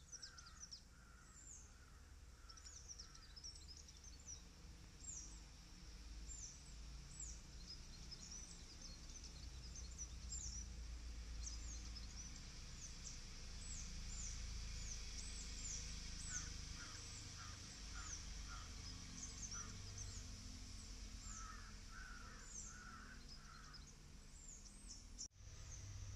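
Faint outdoor ambience: many high, short, falling bird chirps, with a lower call repeated in short runs near the start and again in the second half, over a low rumble.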